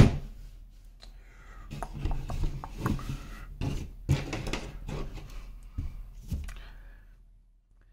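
Thin plastic sheet being shifted and set down on a table against a wooden block: a run of light knocks, taps and clicks.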